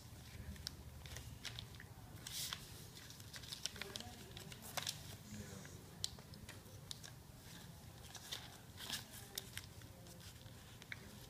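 Paper being folded and creased by hand: faint, irregular crinkles and small clicks as a long paper strip is pleated, over a low steady room hum.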